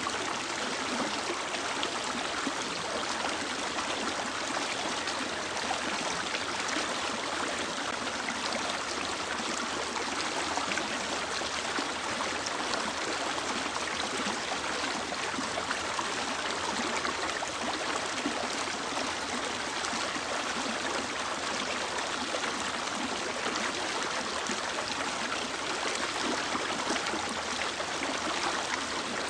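A mountain river or stream flowing steadily over rocks, a constant rushing and burbling of water.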